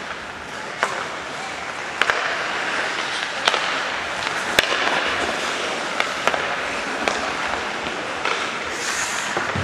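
Ice hockey play: skates scraping on the ice, with several sharp clacks of sticks striking the puck.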